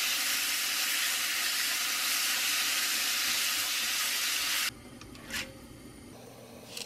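Marinated pork strips sizzling loudly in a hot pan as they are stirred with wooden chopsticks. The sizzling cuts off abruptly about two-thirds of the way through, leaving a much quieter hiss with two faint clicks.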